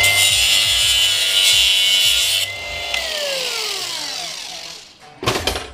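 Cordless angle grinder running at full speed with its disc cutting into a hard black plastic flashlight part: a steady whine under a gritty cutting noise. About two and a half seconds in, the cutting stops and the disc spins down with a falling whine. A short loud knock comes near the end.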